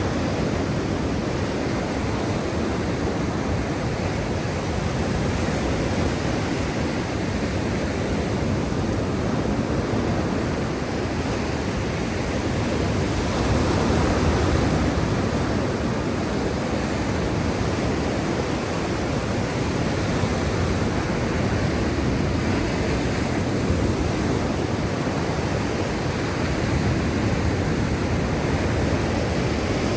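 Black Sea surf: a steady wash of waves, swelling a little louder about halfway through and again near the end.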